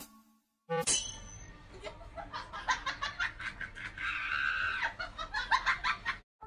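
A person giggling and laughing in quick, repeated bursts, starting with a sharp sound about a second in and breaking off just before the end.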